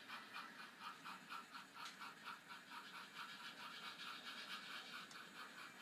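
Faint, quick, even chuffing from a model steam locomotive's Tsunami sound decoder, about four or five chuffs a second, as the Sn3 narrow-gauge train runs.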